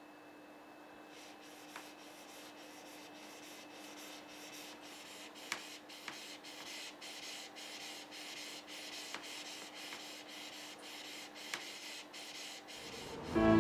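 Small hand-held polishing stone rubbed in quick, even strokes over the tip of a katana blade: a soft, rhythmic scraping of several strokes a second, with a few sharper clicks. A faint steady hum lies underneath.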